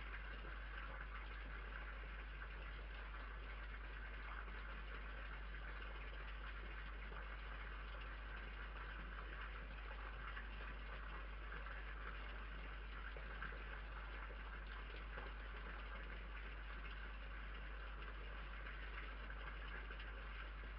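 Steady hiss and low hum from a security camera's built-in microphone, with no distinct sounds standing out.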